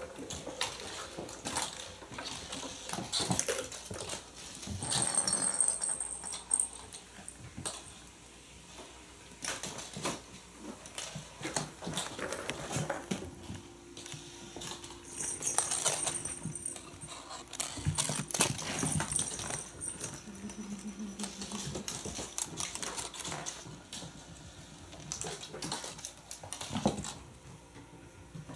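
Kittens playing on a wooden floor: plastic balls rattling around track toys, toys and paws knocking and skittering, with a short low pitched kitten cry just after two-thirds of the way in.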